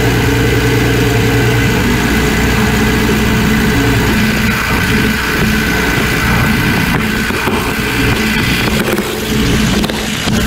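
Detroit Diesel Series 60 12.7-litre inline-six diesel running while the truck drives, heard close up in the engine bay beside the variable-vane turbocharger, with a steady high whine over the engine note and a constant rush of air and road noise.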